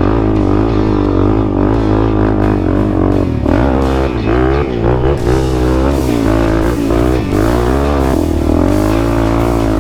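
Background music: a loud track with a stepping bass line and a wavering lead line, getting busier in the treble about halfway through.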